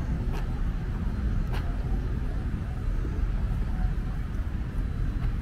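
Outdoor background noise: a steady low rumble with a few faint ticks.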